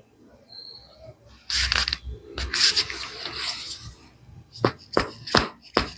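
Rustling and scraping as a body is shifted on a chiropractic treatment table, followed near the end by four quick sharp knocks about two or three a second.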